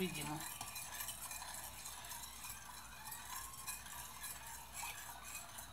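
Faint stirring of a liquid mixture in a glass bowl, the utensil now and then lightly clinking against the glass.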